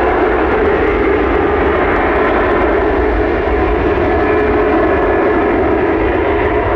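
Jet airliner's engines, loud and steady as the aircraft moves on or near the runway, with a steady droning tone under the engine noise.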